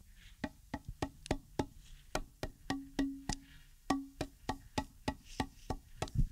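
Background music with a quick, even wood-block beat, about four clicks a second, and a short held low note twice in the middle.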